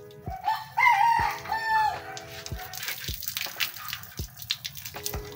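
A rooster crows once, about a second in, one bending call lasting about a second. Hose water splashes on the dog under the rooster's crow, and background music with a regular beat runs throughout.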